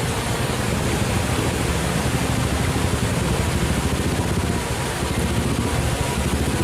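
Royal Enfield single-cylinder motorcycle engine running with a fast, even low pulse, under a steady rushing noise.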